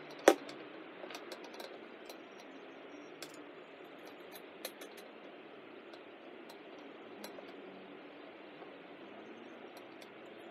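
A sharp knock as a compact router is set into the wooden carriage of a homemade pantograph. Scattered light clicks and taps follow as it is fitted by hand, over a faint steady hiss.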